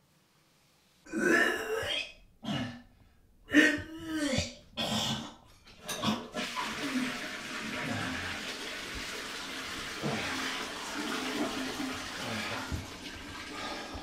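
A man retching over a toilet: several loud, separate heaves and gags in the first few seconds. Then a steady rush of water from a toilet flushing runs for several seconds and tails off near the end.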